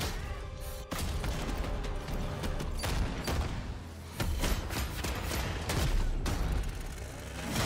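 Battle soundtrack from an animated film: a run of sharp impacts and metallic clangs as a Necron Skorpekh destroyer fights a Space Marine, over a dramatic music score and a low rumble, with a sudden heavier hit about four seconds in.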